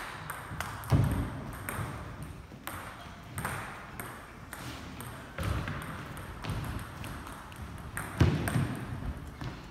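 Celluloid-type table tennis ball clicking off bats and table in a rally that stops about a second in, then scattered ball bounces and clicks in a hall. Heavier thumps, about a second in and again near the end, stand out.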